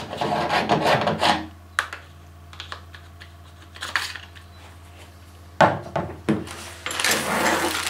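Plastic and metal clatter as the clamping vise of a Dremel Multi-Vise 2500 is loosened and lifted off its ball-joint head, with scattered clicks and a sharp knock a little over halfway through as it is set down. A rustle follows near the end.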